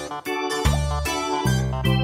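Background music: an upbeat keyboard tune with a bass line, the notes changing quickly.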